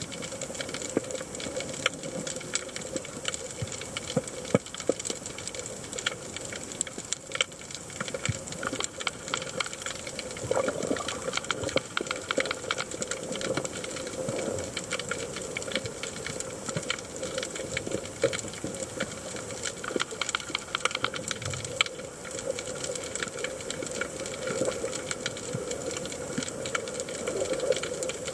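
Underwater ambience picked up by a camera in its housing: a dense, irregular crackle of small clicks over a steady hum.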